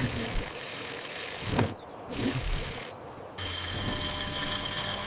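A car engine running steadily at idle, with a short thump about a second and a half in.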